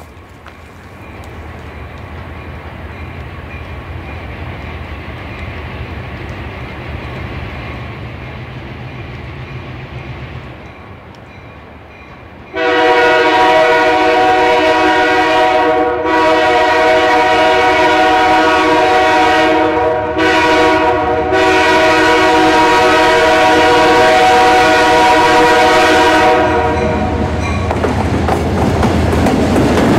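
Alco C424 diesel locomotive approaching with a low engine rumble. Then its Nathan air horn blows several notes at once for about fourteen seconds, briefly broken twice. Near the end the locomotive passes close with its wheels clattering over the rails.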